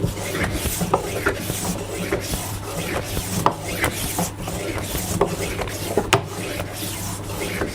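Verum low angle block plane shaving wood in quick repeated strokes, about two a second, each a short scraping hiss of the blade cutting a fine shaving.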